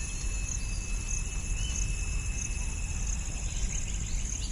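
Insects such as crickets chirping steadily, pulsing about every two-thirds of a second, over a low steady rumble.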